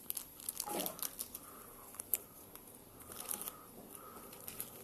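Pokémon trading cards being handled and slid against one another, giving soft scattered rustles and light clicks.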